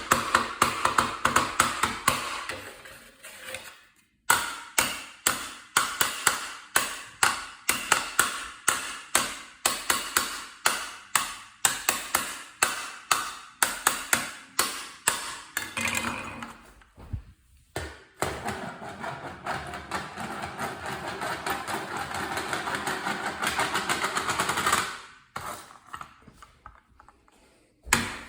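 Smoke alarms sounding, cut together one after another: a run of sharp, harsh beeps about two a second, then a continuous harsh alarm tone for several seconds that stops abruptly.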